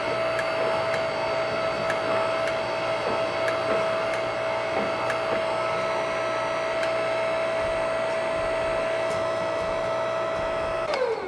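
Drill press motor running with a steady tone and light, irregular ticks. Near the end it is switched off and its pitch falls as it spins down.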